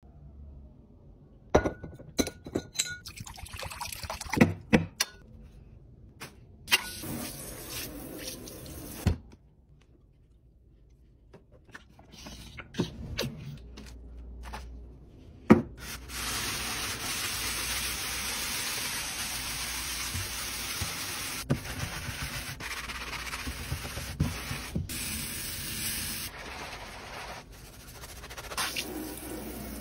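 Kitchen-sink cleaning sounds: sharp clicks and knocks as items are handled for the first several seconds, then about ten seconds of water running steadily from the tap into a stainless-steel sink. A wet sponge is squeezed and rubbed near the end.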